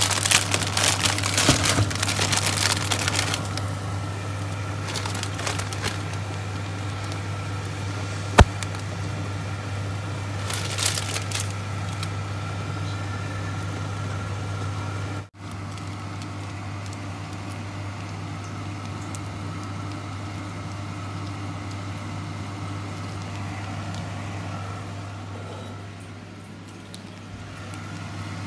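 Plastic instant-noodle packaging crinkling and tearing, dense for the first few seconds and again briefly around ten seconds in, with one sharp click about eight seconds in, over a steady low hum.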